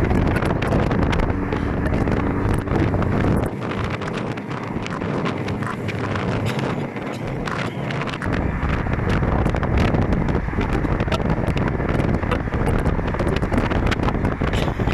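Wind buffeting the microphone over steady road and vehicle noise, a dense rushing sound; the deepest rumble drops away for about four seconds in the first half, then returns.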